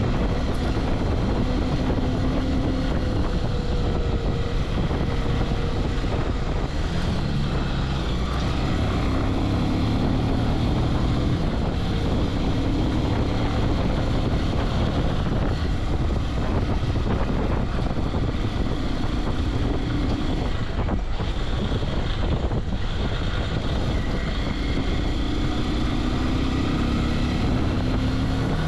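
Bajaj Pulsar 180 motorcycle's single-cylinder engine running under way, its pitch rising and falling with the throttle, mixed with steady wind rush on the microphone. The sound dips briefly twice about two-thirds of the way through.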